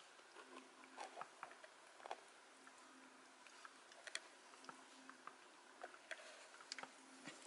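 Near silence with faint, scattered soft clicks and rustles from a kitten pawing at and nibbling a dachshund lying curled up.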